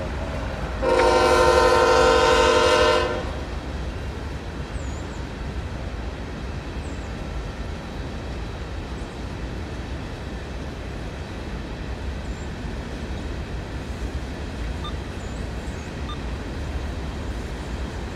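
Diesel locomotive horn on a CSX freight train sounding one long blast about a second in, lasting about two seconds. Under it and after it comes the steady low rumble of the empty coal train's hopper cars rolling past.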